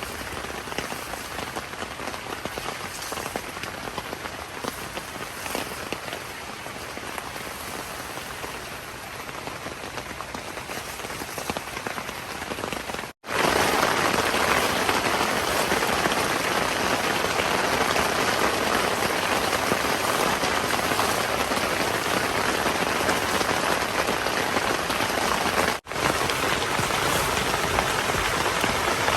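Steady heavy rain falling. It cuts out for an instant about 13 seconds in and comes back louder, with another brief cut near 26 seconds.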